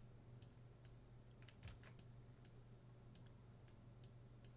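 About a dozen faint computer mouse clicks, spread unevenly, over a steady low electrical hum.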